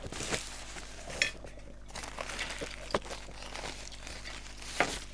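Eating sounds at a meal: a few sharp taps of utensils on dishes, one of them a brief ringing clink about a second in, with faint rustling between.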